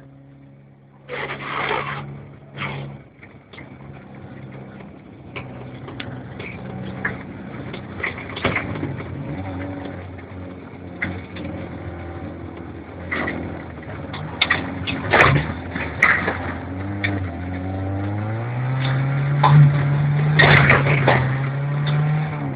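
A motor vehicle's engine running, its pitch climbing about 18 seconds in as it speeds up. Scattered short knocks and louder bursts sound over it.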